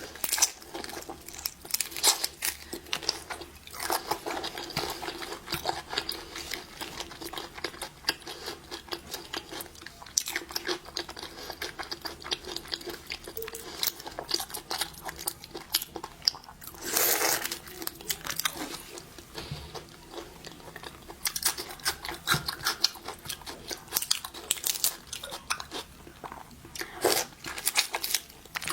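Close-miked eating of shrimp and other shellfish: repeated crisp crunches, bites and chewing, with one longer, louder crunch about halfway through.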